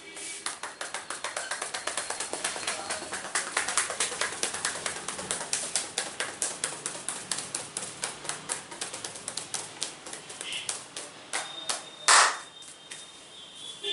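Fast hand tapping and slapping on an oiled scalp during a head massage: a quick run of many taps a second that builds over the first few seconds and then thins out. About twelve seconds in there is one louder, brief noisy burst.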